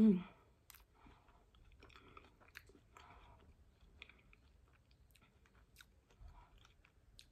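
A person chewing a mouthful of glazed, cream-filled croissant close to the microphone, with faint scattered wet mouth clicks. A short hum of the voice sounds right at the start.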